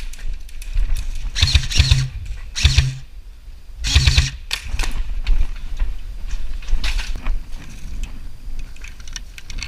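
Airsoft electric rifle firing three short bursts: the first about a second and a half in, a shorter one a second later, and a third about four seconds in.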